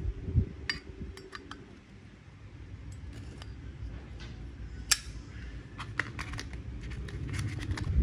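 Zippo lighter being handled: a scattering of sharp metallic clicks and clinks, the loudest about five seconds in, with a cluster near the end. A low steady hum runs underneath.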